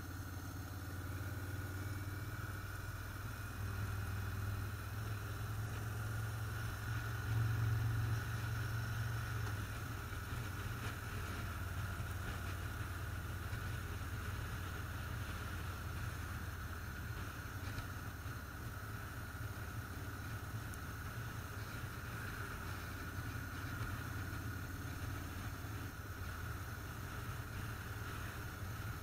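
Motorcycle engine running steadily on the road, with wind rush over the microphone; the engine gets briefly louder about seven seconds in.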